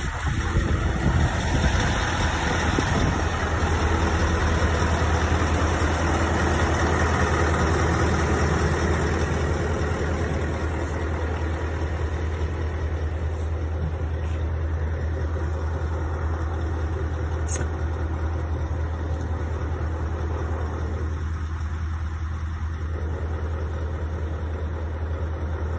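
Scania S650's V8 diesel idling with a steady low drone. It is heard first from beside the open cab door, then from inside the cab, where it is a little quieter.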